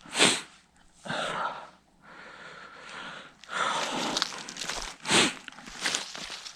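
A few sharp breaths or sniffs from a person out of breath, then footsteps crunching and rustling through dry leaves and brush from about halfway in.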